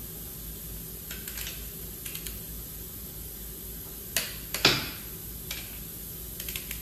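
Torque wrench ratcheting a main bearing cap bolt on an A-series engine block in short runs of rapid ticks. About four seconds in come two sharp metallic clicks, the second the loudest, as the wrench breaks at its set torque of 85 N·m. A steady low hum runs underneath.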